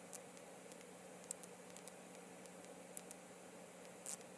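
Faint steady hiss with a low hum underneath and scattered faint clicks and ticks; no clear event stands out.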